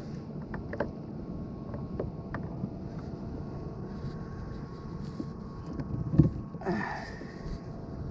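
Wind buffeting the microphone and water washing against a fishing kayak, with scattered clicks and knocks as gear is handled on board. There is a loud knock about six seconds in, followed by a short rushing burst.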